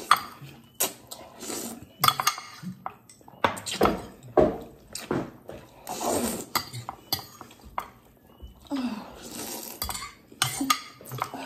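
A metal fork clicks and scrapes against glass food containers while instant ramen noodles are slurped up several times.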